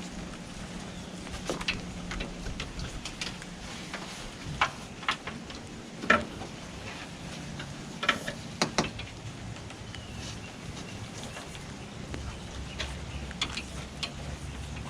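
Low steady hum of a running pressure washer, its pitch shifting lower partway through, with scattered sharp water taps and drips.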